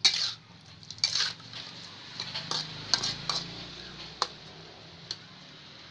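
Spatula clattering and scraping against a metal wok as chicken pieces are stirred and tossed: a string of irregular knocks and scrapes, heaviest in the first half, the last one near the end.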